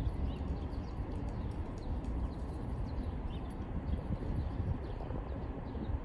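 Outdoor park ambience: a steady low rumble with a few faint bird chirps.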